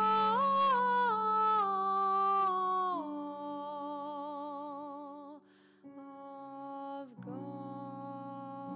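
A woman's voice humming a slow wordless melody of held notes with vibrato over a steady low drone, part of a Taizé chant. The line pauses briefly about five and a half seconds in, then resumes on new sustained notes.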